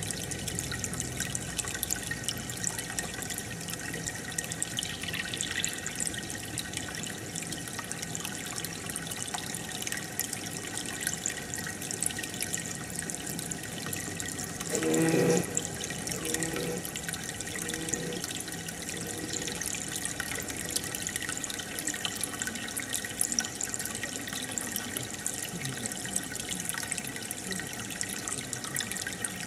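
Aquarium air bubbler and filter running: a steady fizz of bubbles and trickling water, with a brief louder sound about halfway through.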